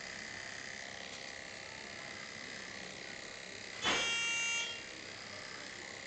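Corded electric animal clippers running steadily with a constant high hum while shaving the fur off a dog's foreleg over the cephalic vein, preparing an IV catheter site. About four seconds in, a brief, louder, higher-pitched sound rises over the hum for under a second.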